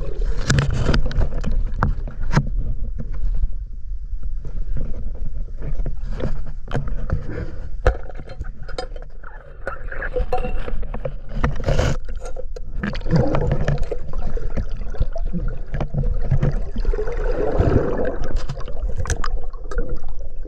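Water sloshing and splashing, with many short knocks, clicks and scrapes from gear being handled.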